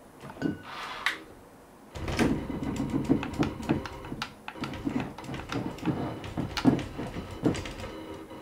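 3D-printed robot arm's joint motors and gearing driving the arm in short, irregular jogging moves: a low hum with dense rattling and clicking that starts about two seconds in.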